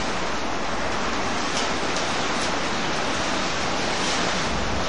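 Steady roar of a tornado's violent wind, an even rushing noise with a few faint ticks.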